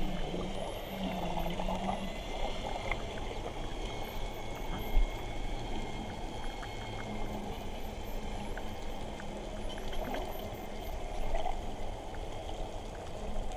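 Underwater water noise with faint high, rising whistles and scattered clicks from a pod of Hawaiian spinner dolphins. One sharp knock comes about five seconds in.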